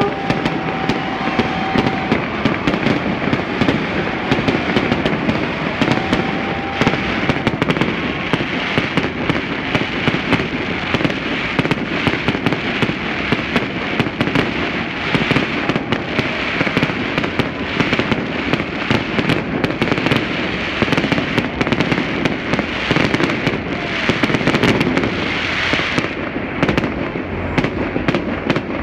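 Low-altitude fireworks going off without a break, a dense run of crackling and sharp reports between tall city buildings.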